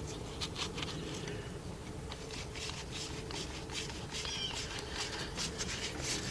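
Faint, scattered clicks and light knocks of hand tools and engine parts being handled during reassembly, with a short high squeak about four seconds in, over a steady low hum.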